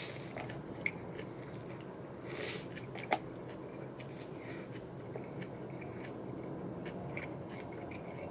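A person eating jjolmyeon, spicy chewy cold noodles: chewing, with two short slurps of the noodles about two seconds apart, a couple of sharp clicks and scattered small wet mouth clicks.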